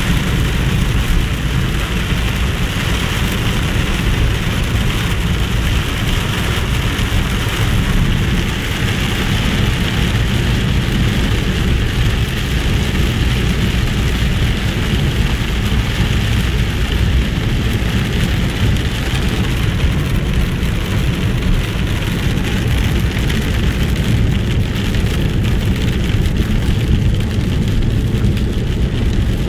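Heavy rain hitting the car's roof and windshield, heard from inside the cabin over the steady low drone of the car driving on the wet road. The rain's hiss eases somewhat in the last few seconds.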